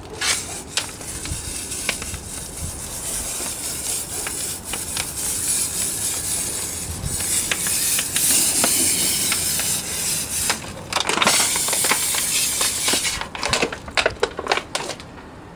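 Water sprayed at low pressure over a dirty car engine bay, a steady hiss with a couple of brief breaks, stopping shortly before the end.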